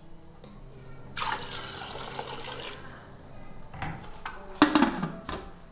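Water pouring for about a second and a half. Then a few sharp clattering knocks of cookware, the loudest about a second before the end.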